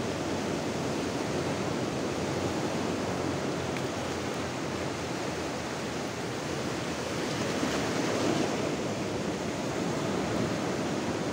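Sea surf breaking and washing in over a flat beach, a steady rush of waves and foam that swells a little past the middle.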